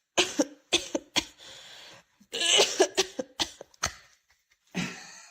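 A run of short, sharp coughs or hacks, about eight in quick, irregular succession, the longest and loudest about halfway through.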